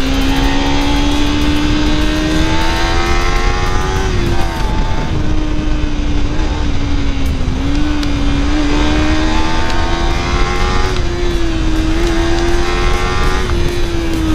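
Motorcycle engine running under load, its pitch climbing slowly and falling back about four and eleven seconds in, over a steady rush of wind noise.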